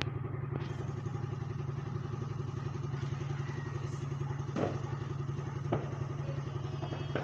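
A small engine running steadily at an even idle, with a couple of light knocks about halfway through.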